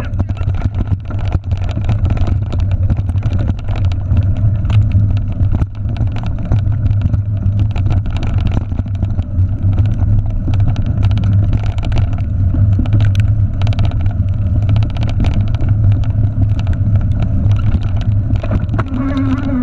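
Ride noise from a bike being towed fast by a dog team over a rough dirt trail, picked up by a handlebar-mounted camera: a loud, steady low rumble of wind and tyres, with a constant clatter of small clicks and rattles from the bike.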